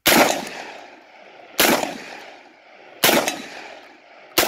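UTAS XTR-12 12-gauge magazine-fed shotgun firing rapid shots, four in all about a second and a half apart, each with a long fading echo. It cycles cleanly between shots, firing 28 g BPS slugs.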